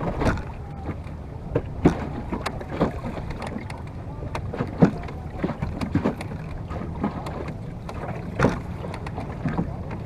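A wooden Venetian rowing boat under way: water splashing and slapping against the hull, with irregular sharp knocks and a steady rumble of wind on the microphone.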